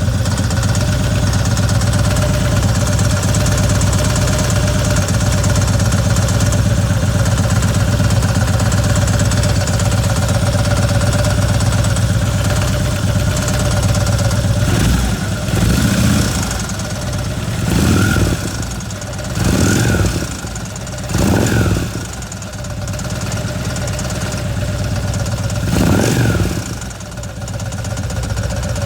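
Harley-Davidson Ultra Classic Electra Glide's V-twin idling with a steady pulsing beat, then the throttle blipped five times in the second half, each rev dropping back to idle. It carries an abnormal noise that the owner suspects comes from the primary drive.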